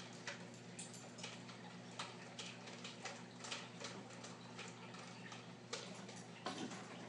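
Faint, steady hum of reef aquarium equipment such as the pump, with irregular small clicks and ticks a few times a second.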